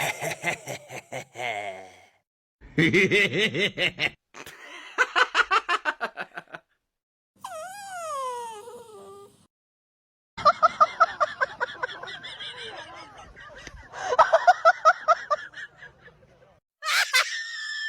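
Bursts of human laughter in short, rapid pulses, heard across several clips that begin and end abruptly; about eight seconds in comes a wavering tone that falls in pitch.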